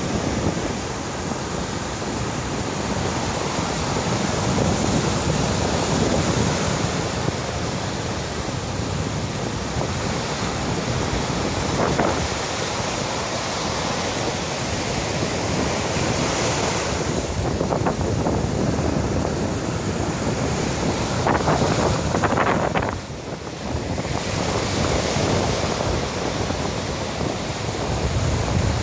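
Heavy surf breaking on the shore, a dense wash of water that swells and eases, with wind buffeting the microphone.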